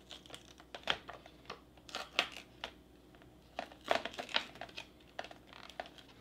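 Foil lid being peeled back off a ration's metal tin tray, the foil crinkling and crackling in irregular bursts, loudest about a second, two seconds and four seconds in.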